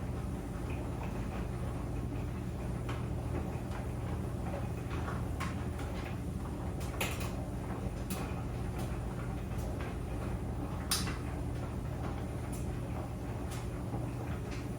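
Clothes dryer running: a steady low hum with irregular light clicks and knocks, including a sharper knock about halfway through and the loudest one about three quarters through.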